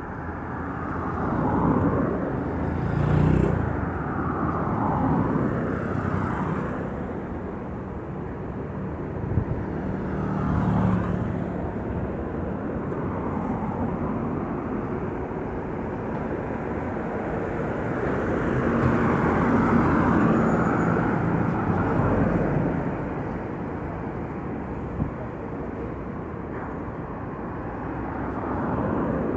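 Outdoor ambience recording: a steady rumble of traffic that swells and fades as vehicles pass, with a couple of brief clicks.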